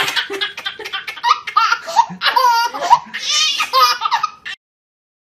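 A laughter sound effect: one voice laughing in quick, high-pitched bursts, cut off abruptly about four and a half seconds in.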